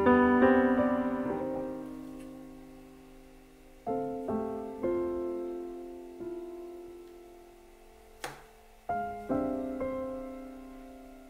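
Solo piano background music: sparse notes struck and left to ring and fade, with one brief tap about eight seconds in.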